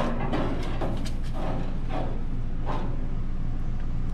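A baking tray slid onto the wire rack of a countertop toaster oven and the oven door closed: a handful of short metal clatters and knocks over a steady low hum.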